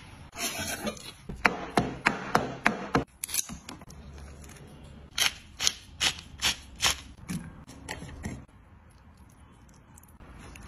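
Food-preparation handling sounds: two runs of about half a dozen sharp knocks or clicks, one starting about a second and a half in and one about five seconds in, each lasting under two seconds.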